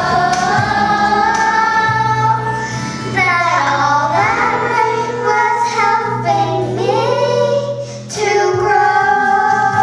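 Young children singing a song together over an instrumental accompaniment, holding and gliding between sung notes; the voices drop briefly just before eight seconds in, then resume.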